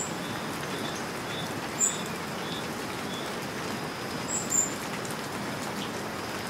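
Steady rain hiss with a few short, high bird chirps, one about two seconds in and a pair a little past four seconds.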